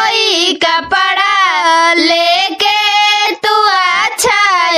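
A high voice singing a Bhojpuri tilak geet, a wedding folk song, in long held notes that glide up and down in pitch.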